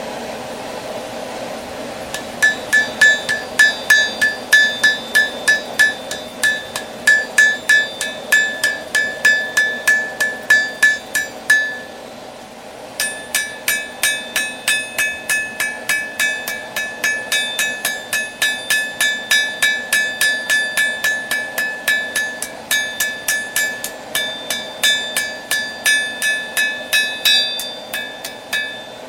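Hammer forging a railroad spike on an anvil in rapid, even blows, each ringing out. There are two long runs of blows with a short pause about twelve seconds in, over a steady background hum.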